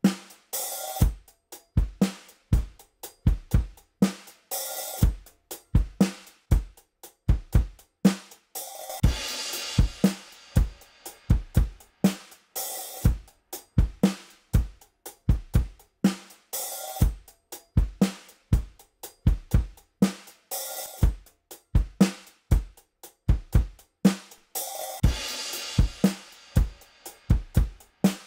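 Recorded drum kit playing a steady repeating groove of kick drum, snare and hi-hat, with a cymbal crash about every four seconds.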